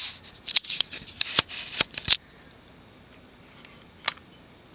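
Close handling noise: a quick run of sharp clicks and rustling over about two seconds that stops abruptly. After that only a low steady room tone remains, with a single click near the end.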